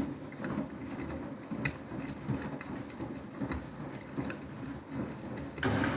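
Beko WTK104121W front-loading washing machine tumbling a load in its rinse: the drum turning with irregular knocks and clicks over a low rumble. About five and a half seconds in, a louder steady rush starts.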